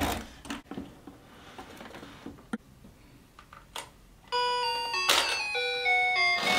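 A few light clicks and taps, then, about four seconds in, a toy claw machine's electronic jingle starts, a bright beeping tune of stepped notes that plays on once a token is put in.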